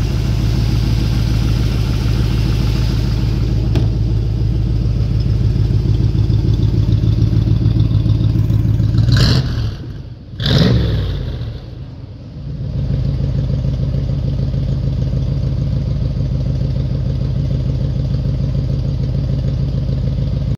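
Factory Five Cobra replica's carbureted Ford V8 idling steadily. Near the middle it is blipped twice, the revs falling quickly back each time, and it then settles back to a steady idle.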